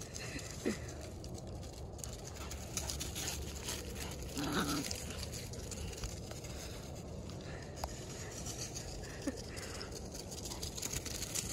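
Dogs playing and chasing each other on a lawn covered in dry leaves: paws patter and rustle through the leaves, with a few short dog yelps.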